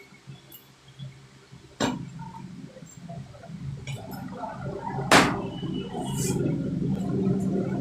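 Metal parts clinking, with one sharp metallic knock about five seconds in, over a low steady hum that grows louder.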